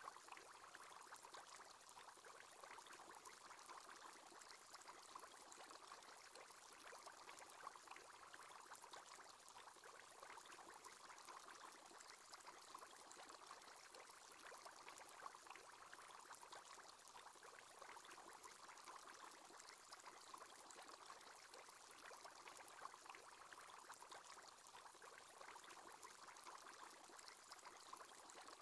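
Faint, steady bubbling of water from an aquarium aerator's bubble column.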